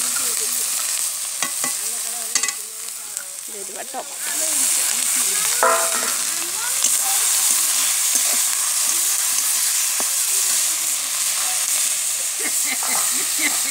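Onions and garlic sizzling in hot oil in a kadai over a wood fire, with the scrape and clink of a steel ladle stirring them. The sizzle gets louder about four seconds in, as chopped tomatoes go into the pan.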